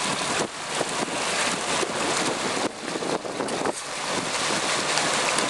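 Wind buffeting the microphone and water rushing past a moving boat, a loud, rough noise that rises and falls in gusts.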